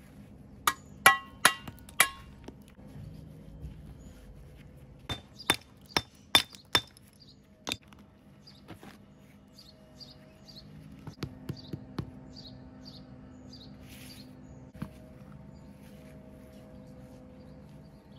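Sharp, ringing hammer blows on stone: four strikes in quick succession about a second in, another run of five or six around five to seven seconds in, then a few lighter taps later on.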